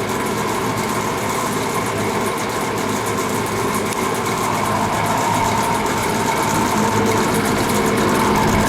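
Lakewood box fan running with a loud, steady racket, its blades worked loose on the motor shaft after the set screw loosened.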